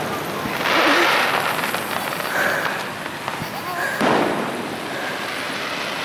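Aerial fireworks bursting overhead, with the sharpest report about four seconds in, each burst trailing off over a second or so. Voices of onlookers are heard faintly around them.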